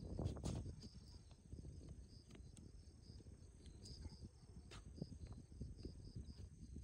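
Faint outdoor ambience: insects chirping in a regular high pulse, about two chirps a second, over a low rumble with scattered light clicks.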